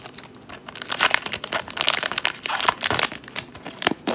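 Wrapper of a hockey card pack crinkling as hands pull out and shuffle the cards, in a rapid string of short rustles.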